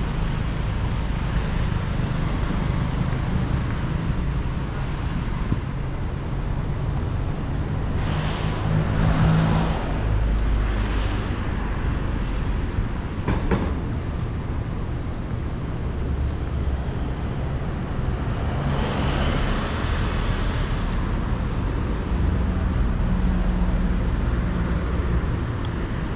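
Road traffic: a steady low engine rumble, with vehicles swelling past twice, about eight and nineteen seconds in.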